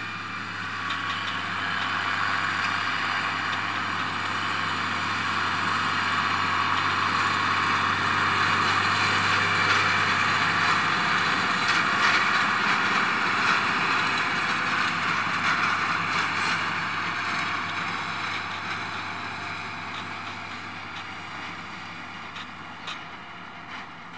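Fendt 930 TMS tractor's six-cylinder diesel engine working under load, pulling a Krone ZX 470 loader wagon that is picking up and chopping grass. The steady machine noise grows louder as the rig drives past, then fades as it moves away.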